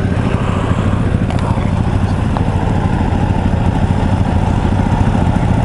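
A 2016 Yamaha YZF-R1M's 998 cc crossplane inline-four running at a steady, unchanging engine speed.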